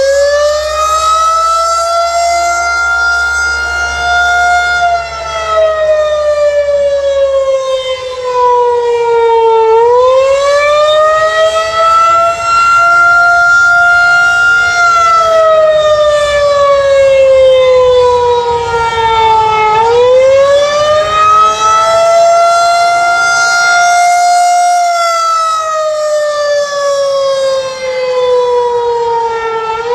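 Federal Signal 2001-130 electromechanical outdoor warning siren sounding its monthly tornado-siren test. It gives a loud, single wailing tone that rises, holds, then falls about every ten seconds as the rotating horn sweeps round, for three rises and falls.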